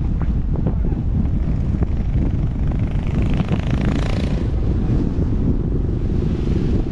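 Heavy wind buffeting the microphone: a dense, steady rumble, with a brief louder hiss about halfway through.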